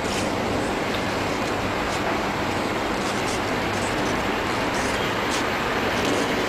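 Steady rushing background noise, with a few faint sharp clicks a second or two apart from tailor's shears cutting through folded fabric.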